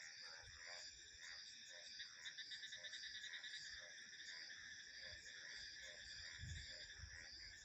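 A frog chorus: short croaking calls repeat about three times a second over steady high trilling of crickets and other insects. A low rumble of wind comes in near the end.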